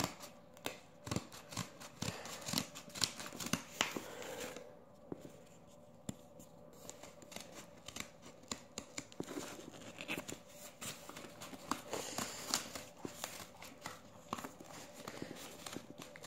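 Scissors cutting through paper along a marked line: a long run of irregular snips.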